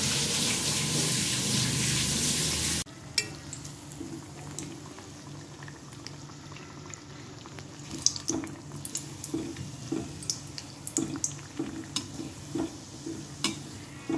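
Dough bun deep-frying in hot oil in a steel kadai: a loud sizzle that cuts suddenly to a quieter sizzle about three seconds in. From about eight seconds in, a slotted steel spoon clicks and scrapes against the pan as the bun is turned.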